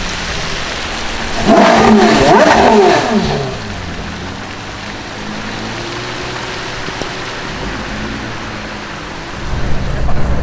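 Porsche Carrera GT's 5.7-litre V10 revving loudly about a second and a half in, its pitch falling away over about two seconds, then running quietly and steadily before getting louder again near the end.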